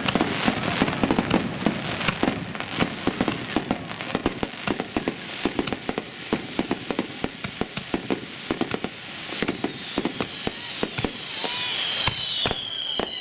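Aerial fireworks shells bursting close overhead: a dense run of crackles and bangs. From about two-thirds of the way in, a series of falling whistles joins them and the noise grows louder.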